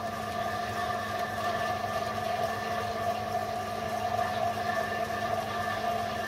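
Home-built Gingery milling machine running steadily, its motor, V-belt and cone-pulley drive giving an even hum with several constant tones.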